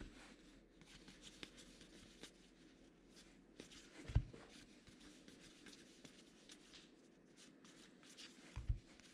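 Faint rustling and soft ticking of a baseball card pack and its cards being handled by hand, with a soft low thump about four seconds in and two more near the end.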